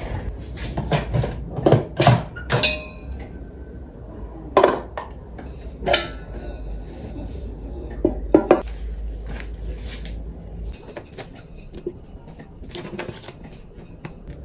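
Electric pressure cooker's lid being opened and its metal inner pot lifted out and handled: a run of clicks and knocks, several in the first three seconds, a few more spaced out, and another cluster about eight seconds in, then softer handling sounds.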